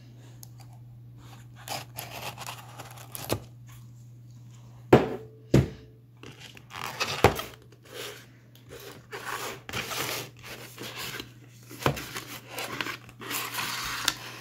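A knife slitting the seal of a small cardboard box, then the box being handled and opened, with cardboard scraping and rustling and a few sharp knocks, the loudest about five seconds in. A low steady hum runs underneath.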